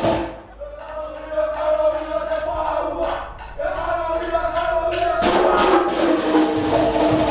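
Cook Islands drum ensemble: the rapid rolling on the wooden slit drums (tokere) breaks off, the drummers chant in unison for a few seconds, and the drumming starts up again with sharp strikes about five seconds in.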